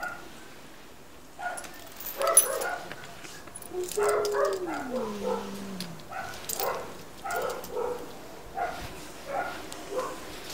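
A dog whimpering and yipping again and again, with one long whine about four seconds in that slides down in pitch.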